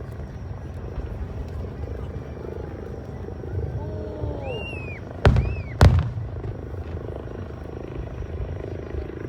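Two sharp firework bangs about half a second apart, a little past halfway, over a steady murmur from the crowd of spectators.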